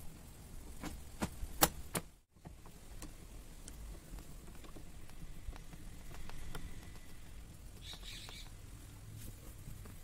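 Small sharp clicks and ticks of a car door lock pin being twisted and handled on its threaded lock rod. Four louder clicks come in quick succession about a second in, then fainter scattered ticks.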